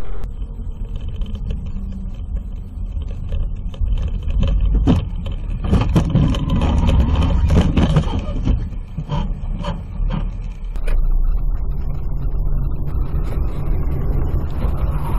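Vehicle engine and road noise picked up by a dashcam, with a run of sharp knocks and bangs in the middle that is the loudest part.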